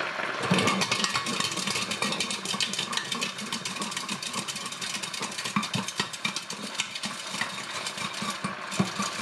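Hard-boiled eggs rattling and knocking against each other and a lidded stainless steel pot as it is shaken rapidly, a fast continuous clatter. The shaking cracks the shells all over so they come loose for easy peeling.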